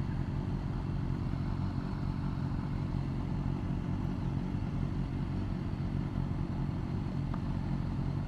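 Motorcycle engine running steadily at a constant low pitch, with road or wind noise.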